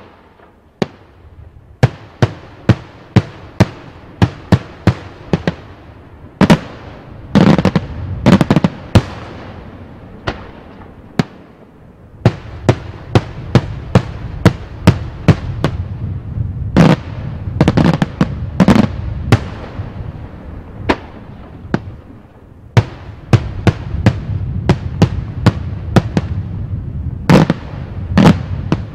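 Daytime fireworks display: aerial shells bursting in a long run of sharp bangs, about two a second, with denser clusters of heavier bangs over a low rumble and a brief lull about ten seconds in.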